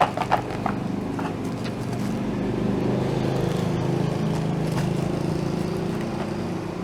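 A motor running steadily with a low droning hum that swells slightly midway, and a few sharp clicks of handling at the start.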